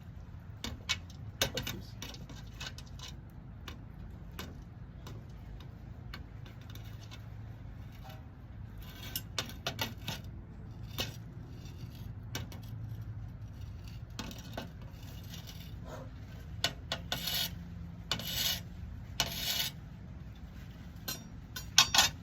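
Small metal clinks and scrapes as the hot bolt arrowhead is handled, over a low steady hum. About seventeen to twenty seconds in come three short hisses, the arrowhead being quenched.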